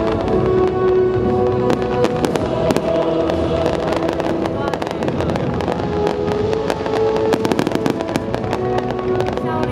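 Aerial fireworks display: dense, rapid bangs and crackling, with music playing throughout.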